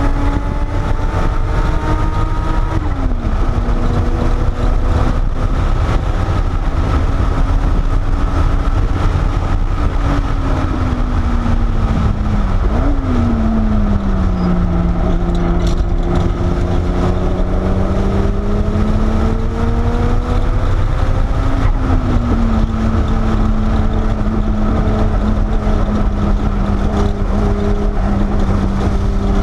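Porsche 930 Turbo's turbocharged air-cooled flat-six heard from inside the cabin on track, over a heavy low rumble. The engine note climbs, drops sharply about three seconds in, sinks around ten to twelve seconds with a short quick blip, climbs slowly again, and jumps up around twenty-two seconds before holding steady.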